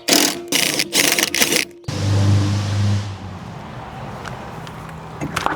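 Dremel rotary tool running at high speed and grinding metal in a series of short passes, then cutting off abruptly. A lower steady hum follows.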